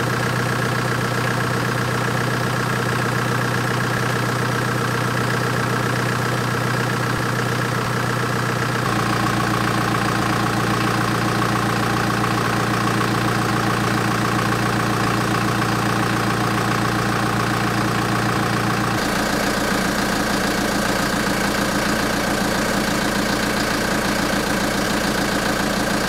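Chevrolet Colorado ZR2's 2.8-litre Duramax four-cylinder turbodiesel idling steadily. Its tone shifts abruptly twice, about nine and nineteen seconds in.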